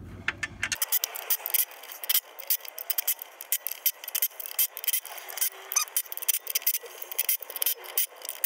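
Ratchet wrench clicking in quick, uneven runs, starting about a second in, as the 14 mm nuts holding the clutch pressure plate to the flywheel are tightened a little at a time.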